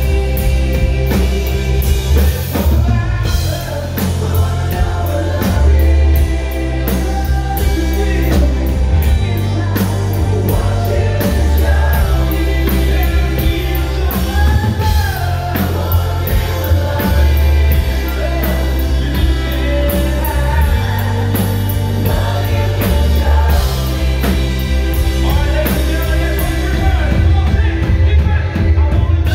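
Live rock band playing: lead singer singing over loud drums, bass, guitar and keyboards.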